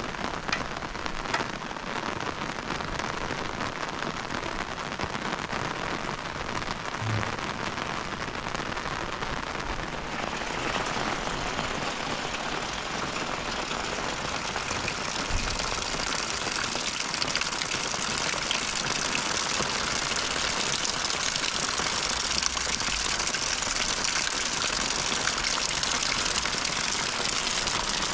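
Steady rain falling, growing a little heavier about ten seconds in.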